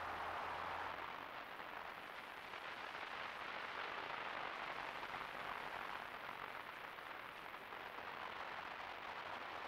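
Steady, even hiss of a trail camera's microphone, with a faint low hum in the first second and no distinct animal sounds.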